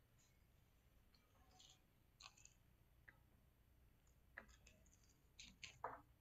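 Near silence with a few faint, short clicks and taps of hands handling a laptop's display and its peeled adhesive strip, a small cluster of them near the end.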